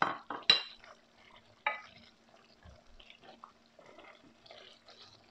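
Wooden spoon stirring a thick chicken masala gravy in a steel pan: three sharp knocks of the spoon against the pan in the first two seconds, then quieter stirring and scraping over a faint sizzle from the gravy cooking in its separated oil.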